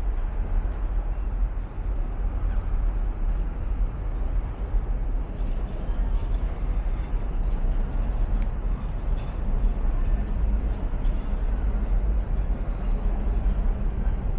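Steady outdoor city ambience: a continuous low rumble with a haze of background noise, and a few light clicks and ticks in the middle.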